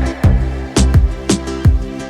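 Background music with a steady beat: an upbeat instrumental track with a drum hit about twice a second.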